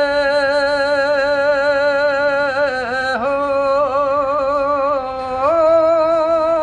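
An old man singing a Punjabi song unaccompanied, drawing out a long wordless note with a wavering, ornamented pitch. The melody dips about three seconds in, then climbs to a higher held note near the end.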